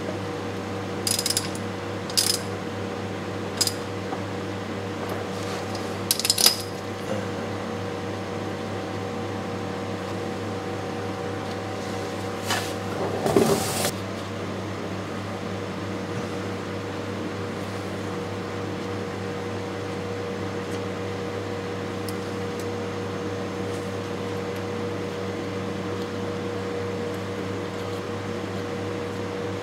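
A few sharp metallic clicks and clinks of a ratchet wrench and hand tools working on the transmission case in the first seven seconds, then a louder short rattle about 13 seconds in. A steady hum of running machinery runs underneath throughout.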